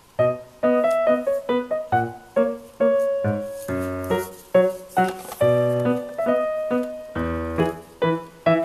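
Background music: a light, bouncy keyboard tune with a bass line, notes struck about two to three a second.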